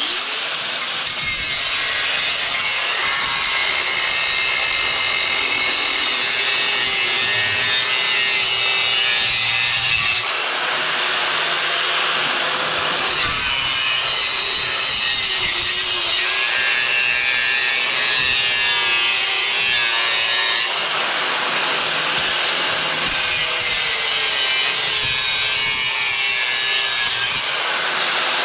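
A power tool cutting through metal scrap, running steadily under load with a loud, hissing grind and slight changes in its sound about ten and twenty seconds in.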